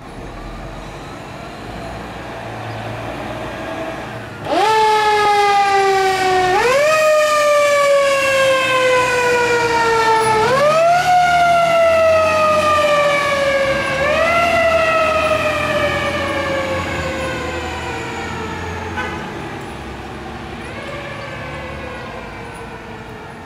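Fire engine siren on a 1996 KME pumper. It cuts in about four seconds in with a sharp climb in pitch. It is then pushed back up three more times, each time rising quickly and sliding slowly down, and fades toward the end. A truck engine rumbles low underneath.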